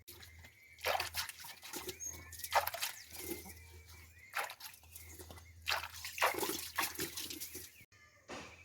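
Cat meowing repeatedly, in short separate calls, over a steady low hum.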